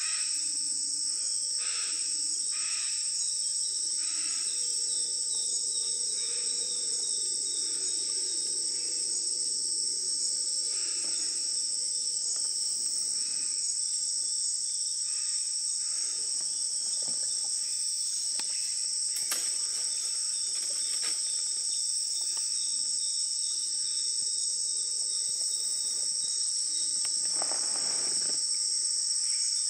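Dense insect chorus in rainforest: a steady, high-pitched shrill that never lets up, with a few faint clicks about two-thirds of the way through.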